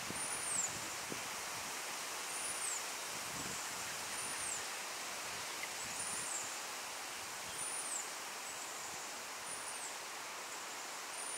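A short, thin, very high-pitched animal call that rises and then falls, repeated about every two seconds, seven times, over a steady outdoor hiss.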